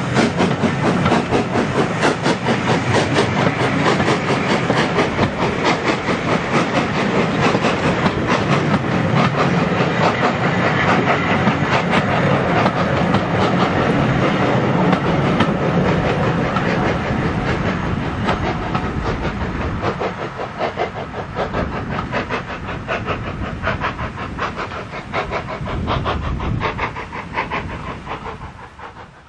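Passenger coaches of a steam-hauled train rolling past, their wheels clattering rapidly over the rail joints. The clatter fades in the last third as the train draws away round the curve.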